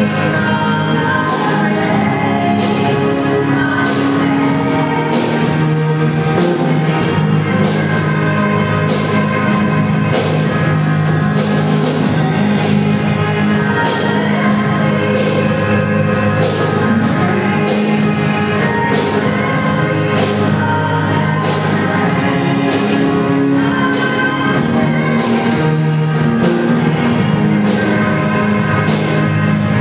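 Live worship band playing a contemporary Christian song: a steady drum-kit beat with cymbals, keyboards and acoustic guitar, and voices singing with the band.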